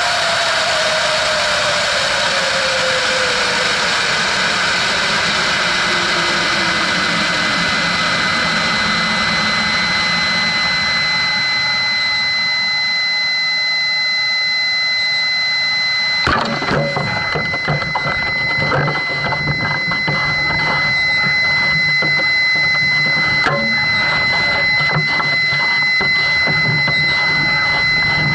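Air rushing over a high-power rocket's airframe, heard from its onboard camera, fading as the rocket coasts and slows, with a whistle falling steadily in pitch. About sixteen seconds in, a sharp bang, typical of the ejection charge deploying the parachute, then irregular knocking and rattling of the separated airframe and recovery harness.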